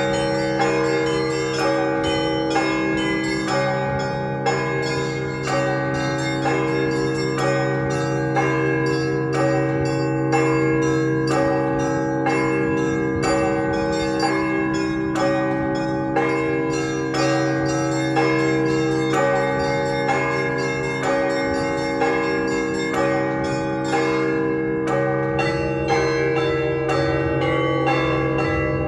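Russian Orthodox festive church bell ringing on a many-bell belfry: quick, rhythmic repeated strikes of the small high bells ring over the held, humming tones of the large low bells, in one continuous peal.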